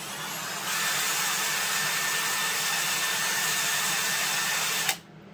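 Kobalt cordless drill running at full speed, its bit cutting into a metal belt pulley. It comes up to full speed less than a second in, runs steadily with a high whine, and stops abruptly near the end.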